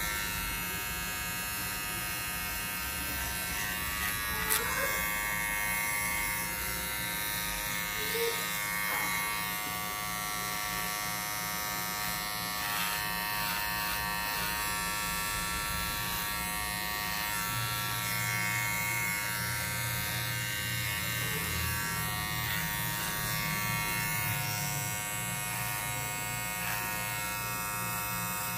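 Cordless T-blade hair trimmer running with a steady electric buzz as it outlines the hairline at the nape and around the ear.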